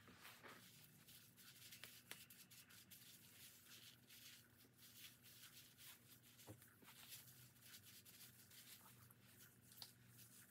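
Near silence: faint, repeated rubbing and scratching strokes of gloved hands working hair dye through thick natural hair, over a faint steady hum.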